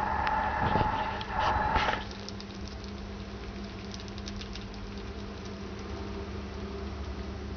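White rats eating wet rice from a plastic bowl: many small, faint clicks and patters of nibbling and chewing over a steady low hum. A louder humming sound with a few knocks stops about two seconds in.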